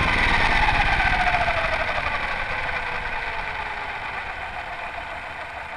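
Align 700E electric RC helicopter's motor and rotor spinning down after landing: a whine falling slowly in pitch and fading away.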